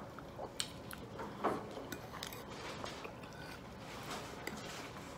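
Close-up chewing and lip-smacking of a mouthful of macaroni and cheese: scattered soft wet clicks and smacks, a few louder ones in the first couple of seconds.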